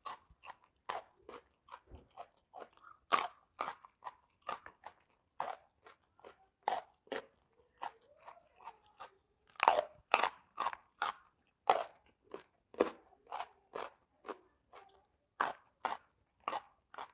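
A person biting and chewing raw jengkol (dogfruit) beans: a steady run of sharp crunches, about two to three a second, with softer wet chewing between them.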